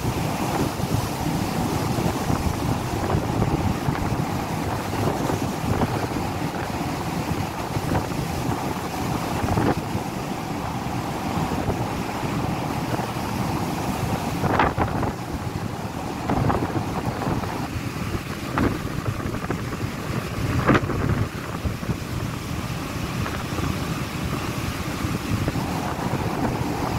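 Gale-force wind buffeting the microphone as a constant rough rumble, with a few short, sharp cracks in the second half.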